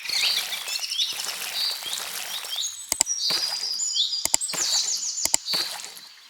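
Birds chirping and twittering in quick high calls, with a few sharp clicks partway through.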